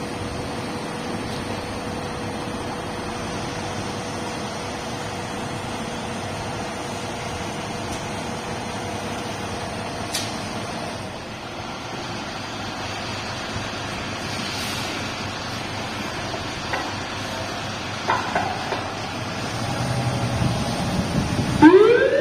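Hino fire pumper's diesel engine idling with a steady hum, picking up near the end as the truck moves off, and its siren starting to wind up, rising in pitch, in the last half second.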